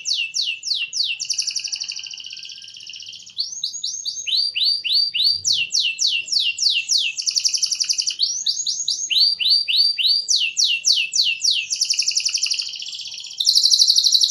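A songbird singing, as on a masteran bird-song training track. It repeats one phrase about every five seconds: a run of curving upward notes, a fast series of downward-sweeping notes, then a buzzy trill that fades.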